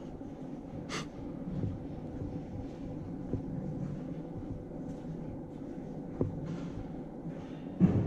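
Footsteps walking at a steady pace on a stone-paved sidewalk, about two steps a second, over a low steady hum. A sharp click comes about a second in, and a heavier knock near the end is the loudest sound.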